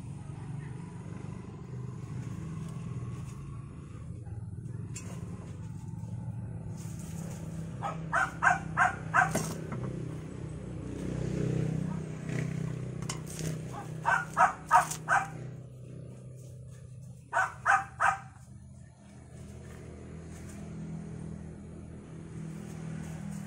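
A dog barking in three short runs of three or four quick barks each, about a third, two-thirds and three-quarters of the way through, over a steady low hum.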